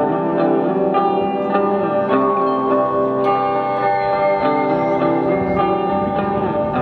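Electric guitar played through effects pedals and an amplifier: several long, held notes layered at once, with pitch slides, building a dense wall of sound.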